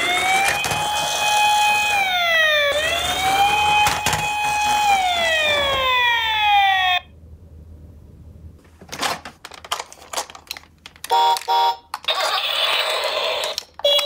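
Toy ambulance's electronic siren from its small built-in speaker, wailing in slow sweeps up and down and holding at the top; it cuts off suddenly about seven seconds in. After that come scattered clicks and a brief electronic beeping.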